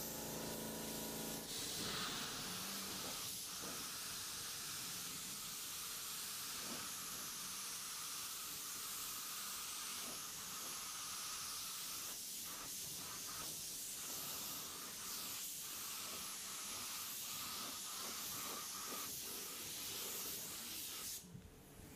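Gravity-feed automotive paint spray gun, run on compressed air, hissing steadily as it atomises paint onto a truck's body panels. The hiss drops away briefly near the end.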